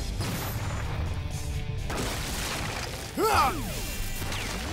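Cartoon action-scene soundtrack: background music over a steady low rumble, with one short swooping sound effect about three seconds in.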